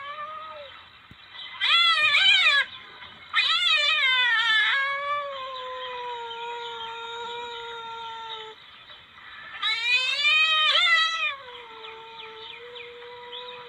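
Civet calls of the kind played as a lure: three loud, wavering, cat-like yowls, about two seconds in, about three and a half seconds in, and near the end. The second and third each trail off into a long, steady, lower wail.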